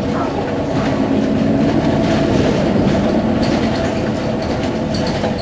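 Mercedes-Benz Citaro Facelift city bus's diesel engine idling steadily while the bus stands at a stop, a continuous low drone with a steady hum.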